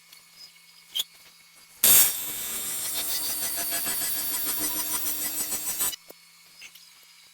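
AC TIG welding arc on aluminum, set to 125 Hz: after a short pause it strikes with a loud burst about two seconds in, buzzes steadily for about four seconds, then cuts off suddenly.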